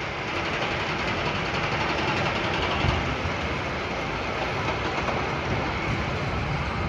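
Roller coaster train rumbling along its steel track: a steady rushing rumble.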